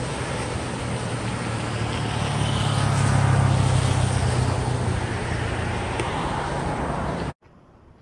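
A low engine drone passing by, swelling to its loudest about three to four seconds in, over a steady rush of surf and wind. The sound cuts off suddenly near the end.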